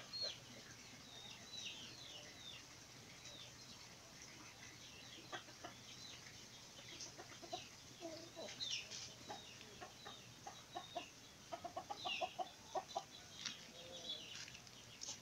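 Chickens clucking faintly, with repeated short, high, falling chirps and a quick series of clucks near the end.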